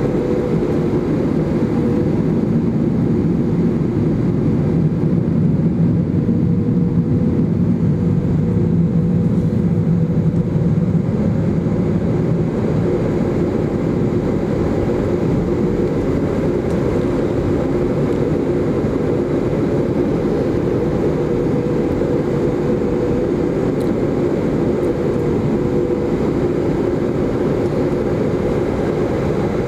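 Steady drone of an Airbus A320 idling on the ground, heard from inside the passenger cabin, with a constant low hum.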